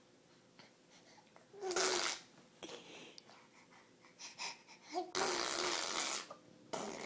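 A baby blowing raspberries, spluttering air through his lips to make fart noises with a little voice in them: a short one, then a longer one, and another starting near the end.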